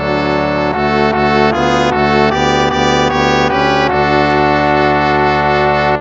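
Instrumental hymn music, a steady stream of held chords that change every half second or so through the middle and hold longer near the end.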